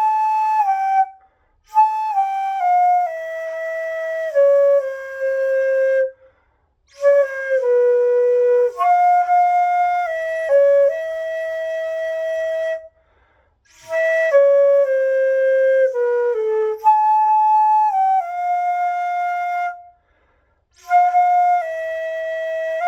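Daegeum, the Korean bamboo transverse flute, playing a slow unaccompanied melody. It plays in phrases of several seconds that mostly step downward in pitch, with short breath pauses between them.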